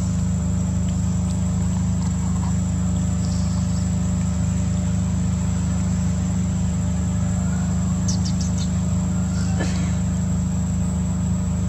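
Steady low machine hum, like a running engine or generator, with a constant high insect buzz above it and a few brief high chirps about eight seconds in.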